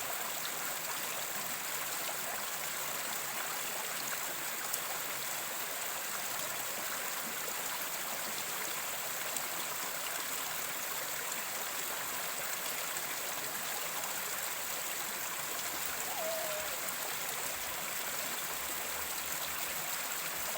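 Mountain stream flowing steadily over rocks, a continuous trickling and gurgling of running water.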